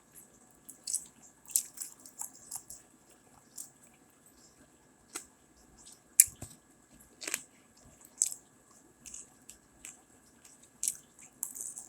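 Close-miked eating of fried chicken: irregular crunching bites and chewing, with the loudest crunches about six and seven seconds in.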